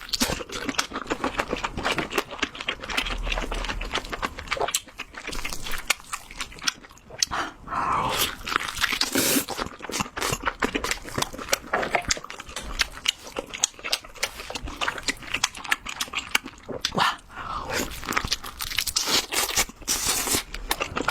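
Close-up eating sounds of lobster and seafood: a dense, continuous run of crunching, biting and wet chewing clicks and smacks.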